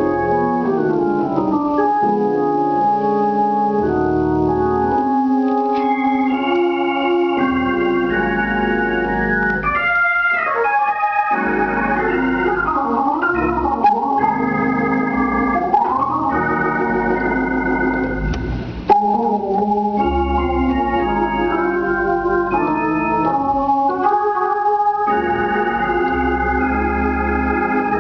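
Hammond B-3 organ played with both hands: held chords, quick runs and a low bass line underneath. About two-thirds through, the sound dips briefly, then comes back in on a sudden loud chord.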